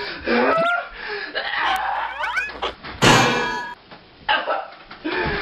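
A boy yelling in a tantrum, overlaid with cartoon sound effects: quick rising whistle-like glides, and a loud sudden burst of noise about three seconds in.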